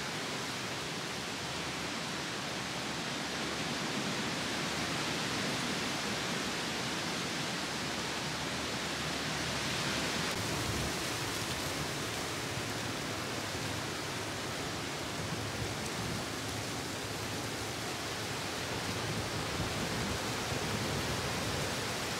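Strong autumn storm wind rushing steadily through the trees, swelling slightly in the middle and easing again.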